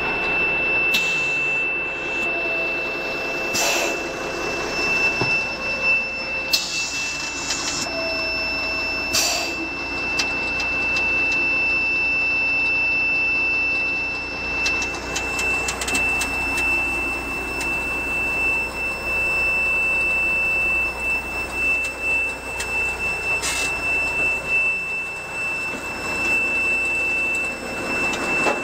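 A steady high-pitched tone in the cab of a 1990 M931A2 military truck tractor, with a few sharp clicks and knocks.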